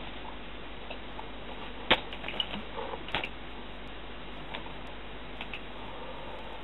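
Low steady hiss with a few sharp clicks or knocks, the loudest about two seconds in and another just after three seconds, with fainter ticks between.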